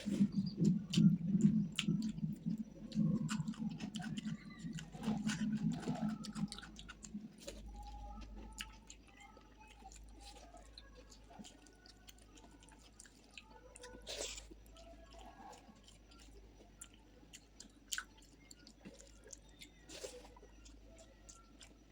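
A person chewing a meal of rice and curry close to the microphone, with wet mouth noises and scattered crunches and clicks. The chewing is loudest for the first six seconds, then goes quieter.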